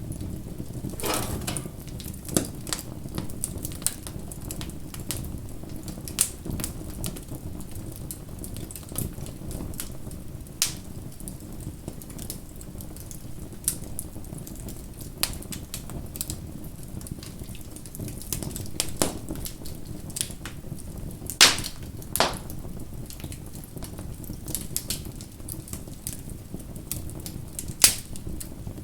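Wood fire crackling: irregular sharp pops and snaps over a steady low rumble of burning, with a few louder snaps, the loudest about two-thirds of the way in and again near the end.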